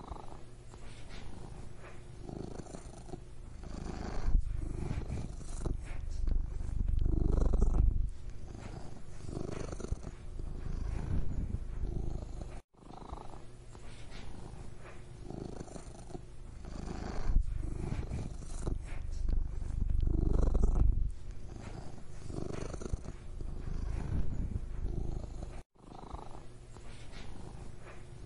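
Domestic cat purring close up: a low rumble that swells and fades with each breath, cutting out briefly twice.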